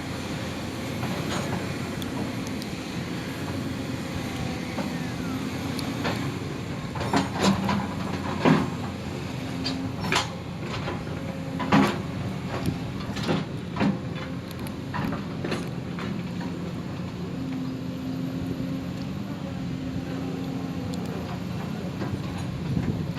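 Steady low background rumble, with a scattering of sharp clicks and knocks in the middle stretch, between about 7 and 16 seconds in.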